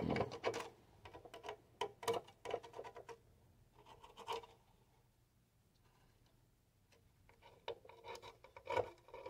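Metal multimeter probe tips scratching and clicking across solder joints on a TV chassis's printed circuit board, in scattered short bursts with a quieter pause of a few seconds in the middle. The probes are being used to check the resoldered connections for an accidental solder bridge.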